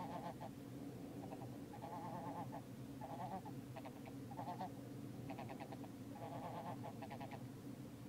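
Bean goose calling: a run of short honking calls, one every half second to a second.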